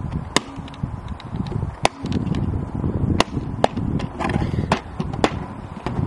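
Irregular sharp plastic clicks and knocks from a toy washing machine being handled and turned over in the hands, over a low rumble of wind on the microphone.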